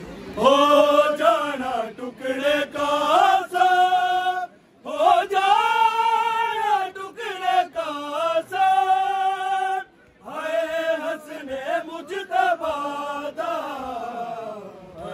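A single voice chanting a noha, a Shia mourning lament, in long melismatic phrases with held, wavering notes. The phrases break off briefly twice, about five and ten seconds in.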